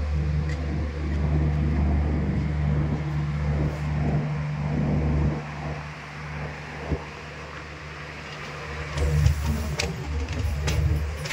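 A steady, low engine drone that fades about five seconds in and comes back near the end, with a few sharp clicks and knocks.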